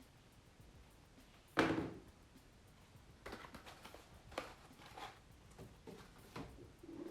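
Packaging handled during a laptop unboxing: one loud sudden knock or scrape about a second and a half in, followed by a string of short crinkles and rustles.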